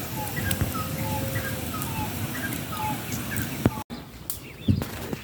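A bird calling over and over with short notes that slide down in pitch, about two a second, alternating between a higher and a lower note, over a low steady background noise. The calls stop at a sudden cut nearly four seconds in, after which there are a few sharp knocks.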